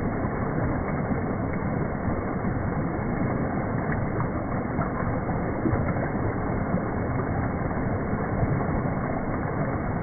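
Water from a rock waterfall in a garden water feature, running steadily over the boulders and splashing into the pool below.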